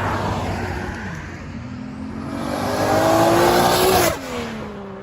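Toyota Supra of about 600 horsepower accelerating past. Its engine note climbs in pitch and grows louder, drops sharply as the car passes about four seconds in, then fades away.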